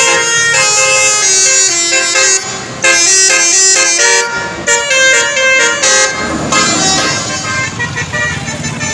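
Indonesian bus 'telolet' horn, a Basuri multi-tone air horn, playing a quick tune of stepped notes with a short break partway through. About six seconds in, the tune gives way to a rumbling noise with fainter horn notes.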